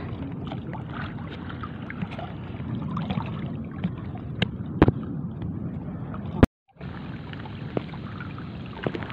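Water sloshing around people wading through shallow sea water while pushing a fishing net, with scattered small knocks. A sharp click about six and a half seconds in, then the sound drops out briefly.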